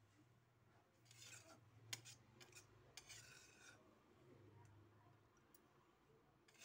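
Faint scraping of a metal spatula against a metal kadhai as cooked peas and potatoes are scooped out onto a steel plate: two short scrapes, about a second in and about three seconds in, with a few light clicks between.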